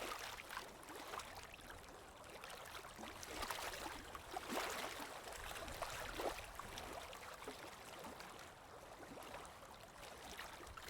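Running water flowing steadily, a continuous rush speckled with many small bubbling and splashing flecks, a little louder in the middle.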